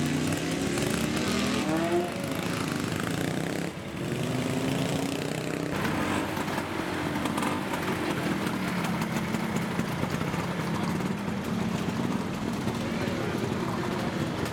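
Engines of several vintage motorcycles and scooters running. One rises in pitch in the first couple of seconds as it revs, and the others hold a steady idle, with people talking over them.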